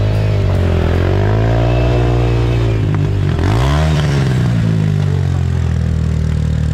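Enduro dirt bike engine revving under changing throttle. The pitch drops and climbs again near the start, then drops sharply and picks up quickly about three and a half seconds in, before settling to a steadier note.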